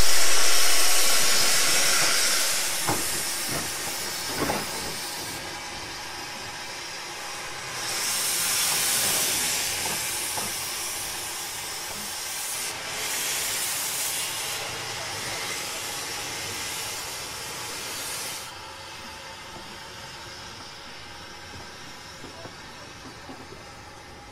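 Narrow-gauge steam locomotive's open cylinder drain cocks hissing steam as it moves off slowly, hauling empty goods wagons. The hiss is loud at first and fades, comes back in two more bursts, then stops about eighteen seconds in, leaving a quieter rumble and clicking of the train rolling on the rails.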